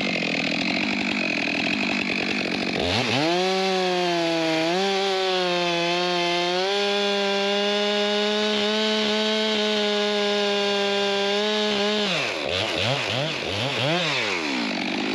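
Chainsaw idling, then opened up about three seconds in and held at full revs as it saws through the log to finish the cut. Near the end it drops back with several quick throttle blips.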